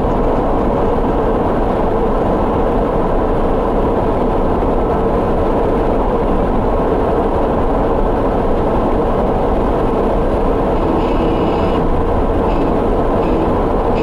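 Steady road and engine noise of a moving car, heard from inside the cabin: a constant rumble with a faint hum.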